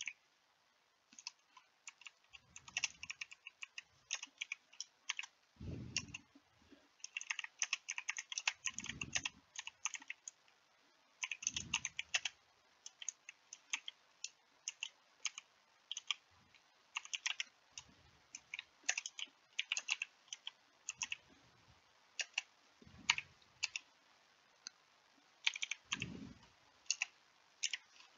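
Typing on a computer keyboard: quick key clicks in irregular bursts with short pauses between. A few soft low thumps sound now and then among the keystrokes.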